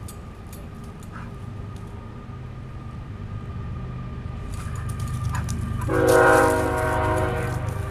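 A train horn sounding one long blast of almost two seconds, a chord of several steady notes, about six seconds in, over a low rumble that grows louder beforehand.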